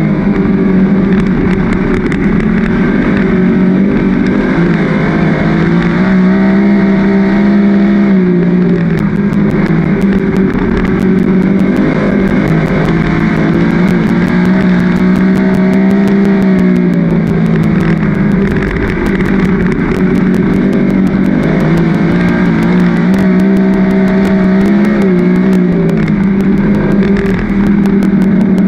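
A winged 410 sprint car's V8 engine running hard around a dirt oval, heard from the cockpit. Its pitch drops as the throttle comes off into each corner and climbs again down the straights, several times over.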